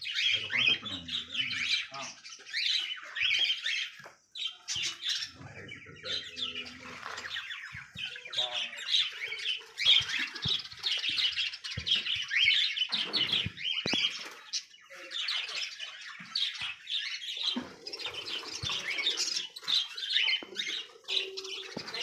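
A flock of caged budgerigars chattering and squawking continuously, many birds calling at once in a dense, high twittering.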